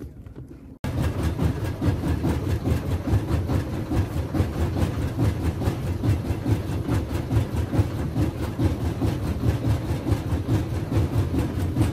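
Small fishing boat's engine running steadily underway, with a fast, even chugging pulse; it starts abruptly about a second in.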